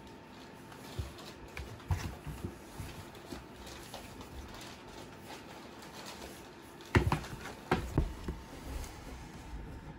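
Two cats wrestling inside a cardboard box: scattered soft thumps and scuffs of paws and bodies against the cardboard, with a few louder knocks about seven and eight seconds in.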